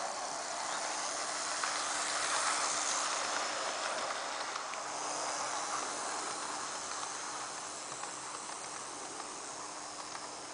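HO-scale model train running on track: a rolling hiss of wheels on rail and motor whir, with a faint steady hum underneath. It swells as the train passes close, about two to three seconds in, then slowly fades as the train runs off.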